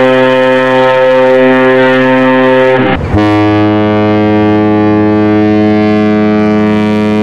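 Two deep warship horns, one after the other. The first blows steadily, sags in pitch and cuts off about three seconds in; a second, slightly lower horn then sounds in one long steady blast.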